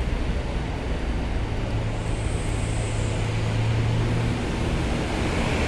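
Steady low hum of a car ferry's engines as it manoeuvres in to berth, over an even rushing background noise.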